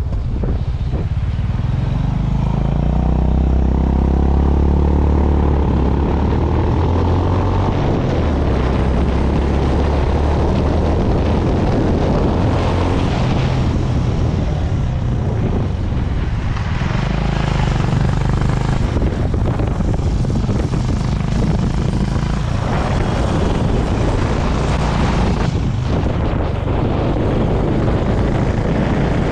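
Honda CB350 RS's air-cooled single-cylinder engine running on the move, its note rising as it pulls up through the revs a few seconds in, then holding steady.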